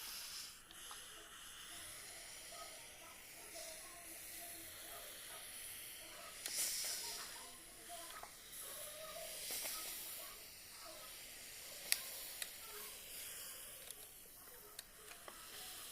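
Clothes steam iron hissing as it puffs out steam in repeated surges, with a few sharp clicks later on. The hiss shows the iron is producing steam again after the repair.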